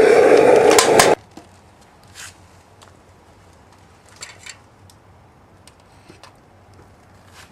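A loud, steady whirring machine, most likely the homemade furnace's air blower, stops suddenly about a second in. Faint scattered clicks and knocks follow.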